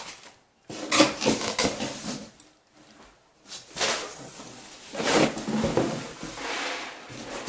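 Cardboard box and packing being handled: scraping and rustling in two stretches, with a short pause between them.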